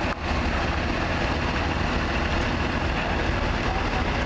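Engines of military six-wheel cargo trucks running steadily in a convoy, a low rumble under a constant hiss of rain.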